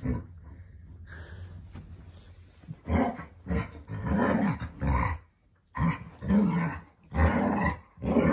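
Alaskan malamutes vocalising at each other in play. A quieter low growl comes first, then from about three seconds in a run of loud, short 'talking' woo calls that bend up and down in pitch, one after another.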